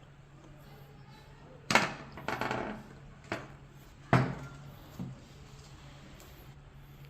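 Plates and bowls set down and shifted on a table: several sharp knocks and a short clatter, with a low steady hum underneath.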